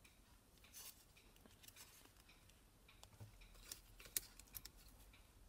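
Faint rustling and small crinkling ticks of folded origami paper units being handled and pressed together, in near silence.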